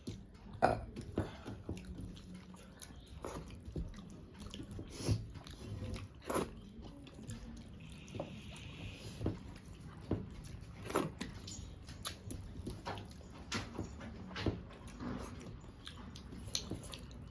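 A person eating rice and fish curry: chewing with irregular wet mouth smacks and clicks, roughly one every second.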